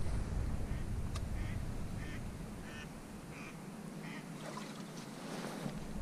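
Ducks quacking: a series of five or six short quacks, about half a second to a second apart, fairly faint.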